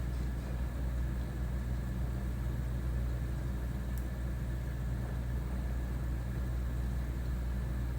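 Mitsubishi Mr. Slim ceiling-cassette air conditioner indoor unit running in cooling mode: a steady fan and airflow hum with a faint, steady higher tone on top.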